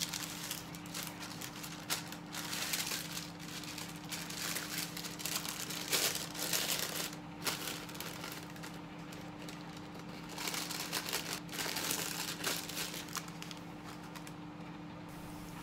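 Cooking paper crinkling and rustling in irregular bursts as it is folded and pressed into a bento box as a liner, over a faint steady hum.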